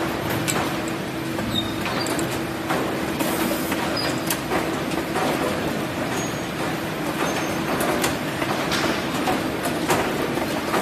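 Poultry processing line with a belt weight-sorting machine running: a steady machine hum with a held low tone, and irregular knocks and clatter on the stainless steel chutes as whole chicken carcasses are handled and sorted.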